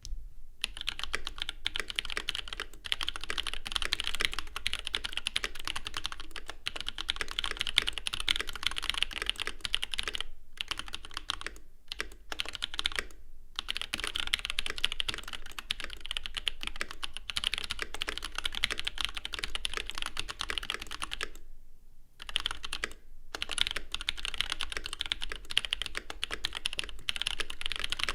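Steady typing on a Boardsource Mark 65 gasket-mount 65% keyboard with an FR4 plate, stock Holy Panda tactile switches and GMK keycaps. There are a few short pauses about ten seconds in and again about three-quarters of the way through.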